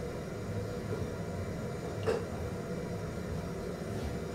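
Faint low room noise from someone moving about in the next room, with one soft knock about two seconds in, typical of a cupboard or drawer being handled.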